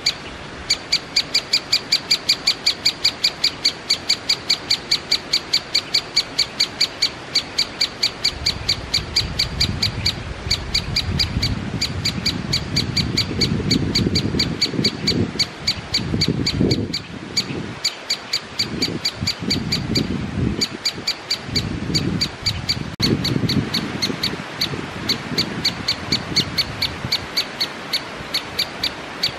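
Great spotted woodpecker nestling calling from its nest hole: a rapid, even series of short, sharp, high calls, several a second, the begging call of a chick in the nest. A low rumbling noise runs underneath from about eight seconds in until near the end.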